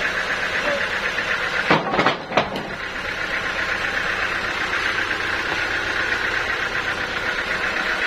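Sawmill machinery running steadily with a fine, fast rhythm, broken by a few sharp knocks about two seconds in.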